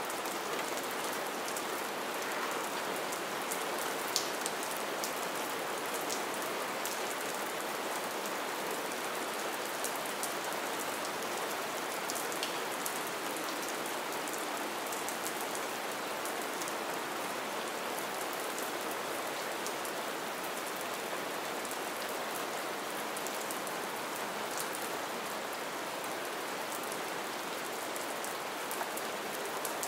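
Steady light rain falling: an even hiss of rain with scattered individual drops ticking through it, one sharper drop about four seconds in.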